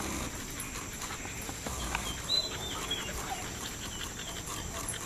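Dog whining softly in short, high notes that rise and fall, mostly around two to three seconds in, over light taps and clicks.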